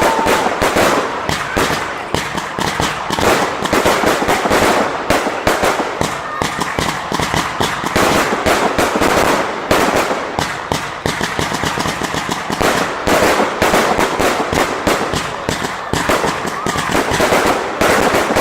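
Fireworks firing in a rapid, continuous barrage of cracks and bangs, many per second, with no break.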